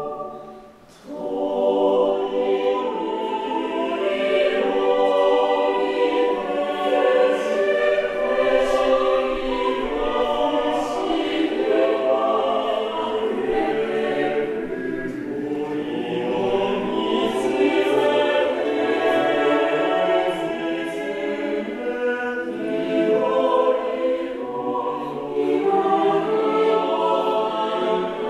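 Mixed choir singing a cappella in sustained chords. There is a brief break at the start, and the voices come back in about a second in.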